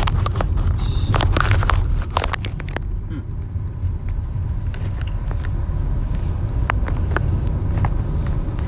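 Steady low rumble of a car driving, heard from inside the cabin. Over the first two seconds or so there is scraping and clicking from the phone being handled against the lens cover, then only a few faint ticks.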